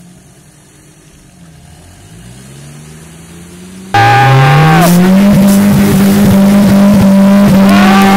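A faint engine revs up, rising in pitch. About four seconds in the sound cuts abruptly to a very loud UAZ off-roader engine revving hard. Its note climbs for about a second and is then held at high revs as the vehicle ploughs through a deep pit of muddy water.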